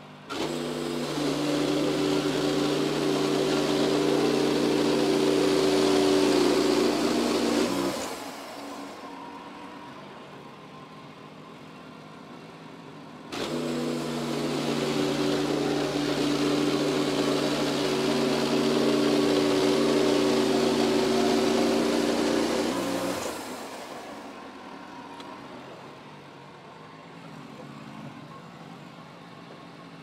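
Wood-Mizer LX55 bandsaw mill's engine throttled up and its band blade cutting through a large tulip poplar log, twice. Each cut starts suddenly and runs steady for about eight to ten seconds, then falls back to a quieter idle.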